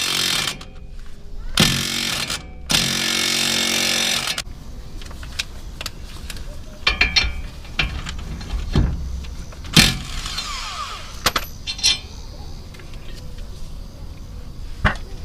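Impact wrench running a sacrificial lug nut down a new wheel stud to pull the stud into the hub, in three bursts, the last and longest about four seconds in. Scattered metal knocks and clinks of tools follow.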